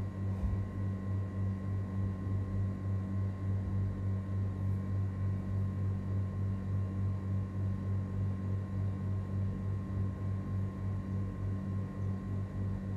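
A steady low hum with a fainter, higher steady tone over it, unchanging throughout.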